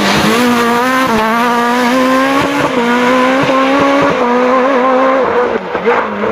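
Renault Clio rally car's four-cylinder engine held at high revs as it accelerates away, its pitch stepping down several times at the upshifts. The sound weakens briefly near the end as the car moves off.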